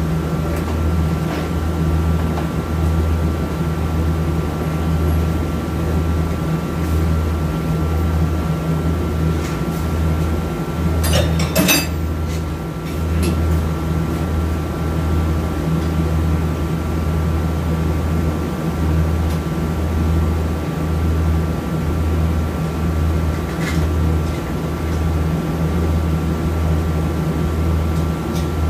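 Steady low mechanical hum of running shop equipment, with a short run of metal clinks from hand tools on a transmission valve body near the middle.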